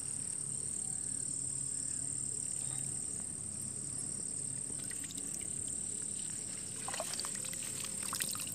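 A steady, high-pitched insect drone, with small splashes and a trickle of water near the end as hands scoop snails out of shallow water.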